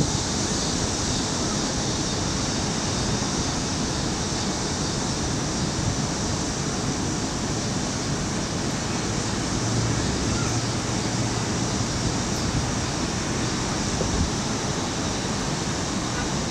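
Hurricane wind rushing steadily, buffeting the microphone with a low rumble.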